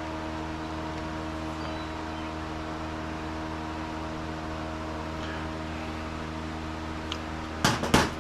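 A steady mechanical hum holding several fixed tones over a soft hiss. Near the end there are a few sharp clicks and knocks, the loudest close to the very end.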